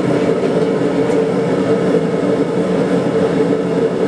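Blacksmith's forge running steadily: a constant roar with an even machine-like hum under it.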